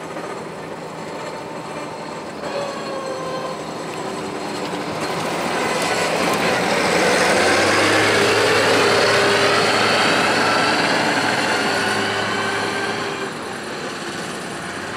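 Bizon Rekord Z058 combine harvester driving past on a road: its diesel engine and machinery grow louder as it approaches, are loudest about eight seconds in as it goes by, then fade as it moves away. A whine from the machine slides in pitch as it passes.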